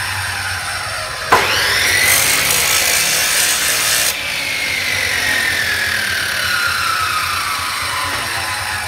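Panda abrasive chop saw cutting 4 mm steel angle. A little over a second in, the sound jumps up suddenly, the motor's whine rising. For about three seconds the disc grinds harshly through the steel, and this stops abruptly. The motor's whine then falls slowly as the disc spins down.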